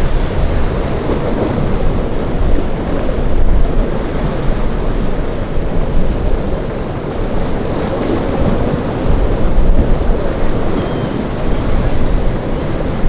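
Rough surf breaking and churning, with wind buffeting the microphone; the noise swells and eases with the waves.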